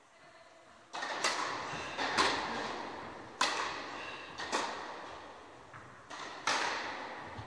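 Tennis balls being struck and bouncing: a series of about seven sharp ball impacts a second or so apart, each with a long echoing tail.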